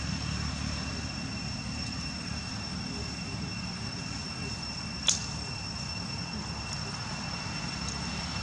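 Steady outdoor background ambience: a low rumble under a steady high-pitched whine, broken once, about five seconds in, by a short sharp high squeak.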